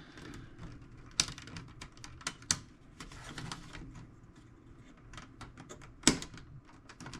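Small metal parts of a tool box's drawer locking mechanism clicking and tapping as they are handled and fitted, with a few sharper clicks, the loudest about six seconds in.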